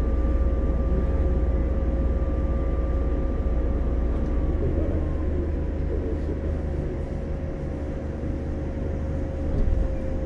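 115-series electric train (motor car KuMoHa 114-501) running at speed, heard from inside the car: a steady low rumble of wheels on rail with a steady whine over it.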